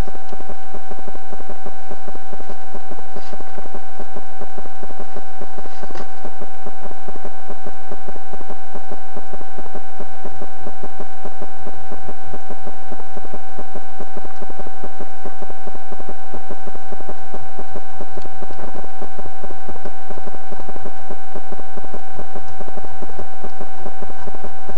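Eurasian beaver gnawing an alder trunk: a fast, even run of small clicks and scrapes, with two sharper clicks about 3 and 6 seconds in. A steady high electronic whine and hiss from the trail camera runs under it.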